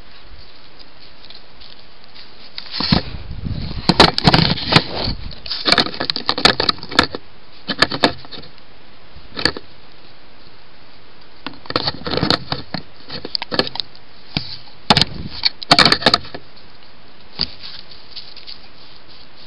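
A wolf at a trail camera, its muzzle and body knocking and scraping against the camera housing: clusters of loud, irregular knocks and rattles from about three seconds in until about sixteen seconds, with one last knock a little later, over the steady hiss of the camera's microphone.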